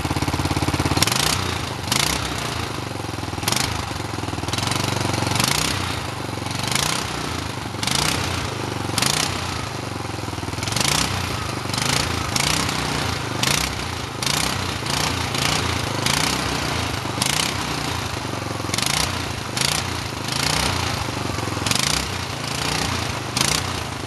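Go-kart's small engine running cold, its muffler clearing out melted snow and water. Irregular sharp crackles come every second or so over the steady engine note.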